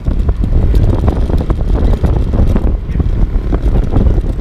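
Wind buffeting the microphone of a motor scooter riding along a road, a loud, uneven low rumble, with the scooter's running and road noise underneath.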